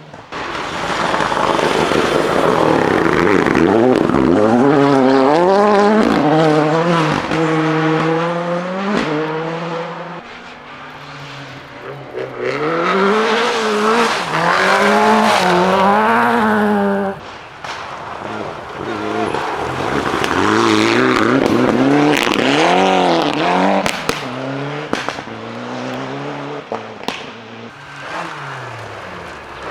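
Rally car engines revving hard at full throttle, pitch climbing and dropping through gear changes, in three loud surges as cars come through the stage.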